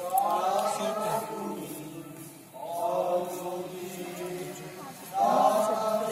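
A group of voices chanting together in three phrases, each starting loud and fading away.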